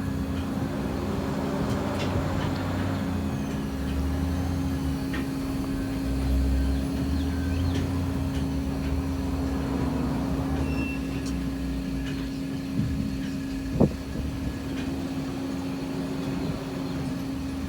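Sawmill machinery running steadily with a constant hum and a low rumble that rises and falls, and a sharp bang about fourteen seconds in.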